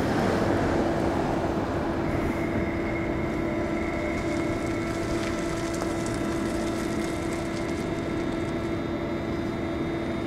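Steady mechanical hum holding one constant pitch over a wash of outdoor city noise.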